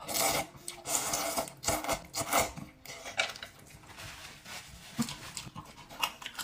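A mouthful of wide noodles slurped in several loud, noisy pulls over the first two and a half seconds or so, then quieter wet chewing with a few clicks of chopsticks against a steel bowl.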